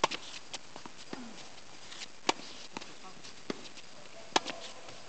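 Tennis rally: sharp pops of a tennis ball struck by racquets, the three loudest about two seconds apart, with fainter knocks between.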